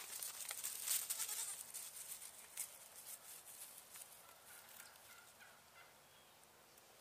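Goats moving about on dry leaves and a lattice mat: a sharp knock at the start, then a few seconds of rustling and scattered clicks that die away. Faint short high calls follow near the middle.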